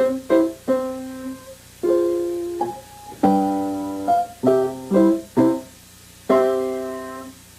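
Piano playing a classical piece: single struck notes and full chords, each ringing and fading, with two long held chords that die away slowly.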